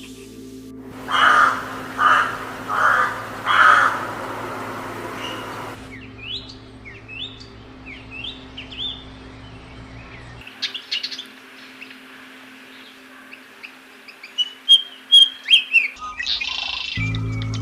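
Birds calling over a soft, steady music drone: four loud, harsh calls about a second apart early on, then a run of short rising chirps, and a burst of sharp, high chirps near the end.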